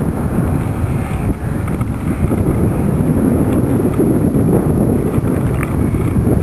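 Wind buffeting the microphone heavily, with the nitro four-stroke engine of a radio-controlled P-47 Thunderbolt model running faintly beneath it.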